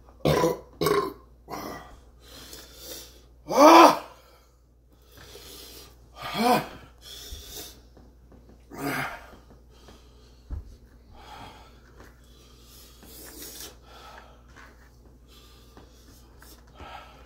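A man breathing hard and letting out short pained groans in separate bursts, the loudest about four seconds in and another at about six and a half: his reaction to the burn of an extremely hot chili chocolate bar.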